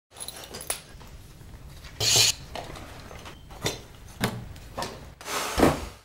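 A series of sharp knocks and clatters. A short hissing burst comes about two seconds in, and a louder clatter near the end.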